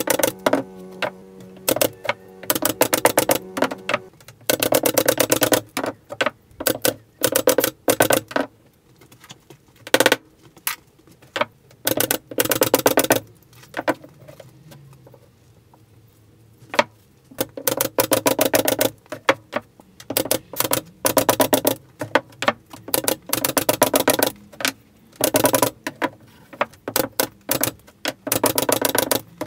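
Air-powered pin nailer firing 0.6 mm pins into plywood shelf slats: sharp snapping shots, some single and some in quick runs of several, with short pauses between. A steady low hum stops about four seconds in.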